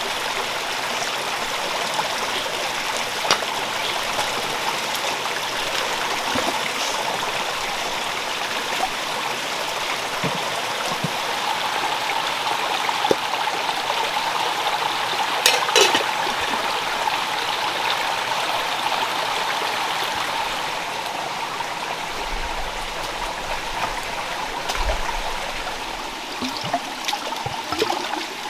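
Shallow forest stream running over rocks: a steady rush of water. A few faint clicks and one sharper clatter about halfway through.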